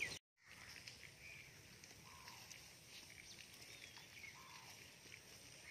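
Near silence: quiet outdoor ambience with a few faint, short bird calls.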